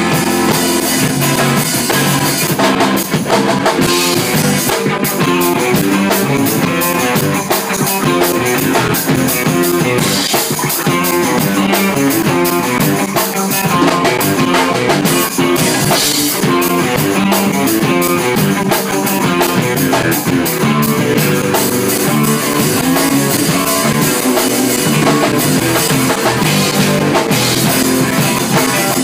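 A live rock band playing loudly: guitars over a drum kit with cymbals.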